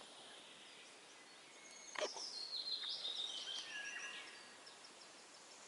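Faint bird song: a run of short high-pitched notes stepping down in pitch over about two and a half seconds, starting with a single sharp click.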